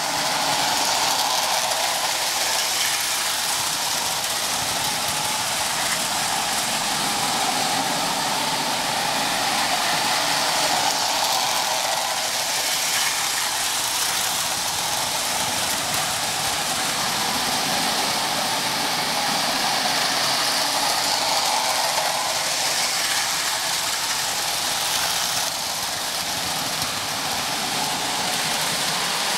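Lionel and Marx O-gauge electric toy trains running on tubular three-rail tinplate track: a steady mix of motor hum and metal wheels clattering on the rails, swelling a little as trains pass.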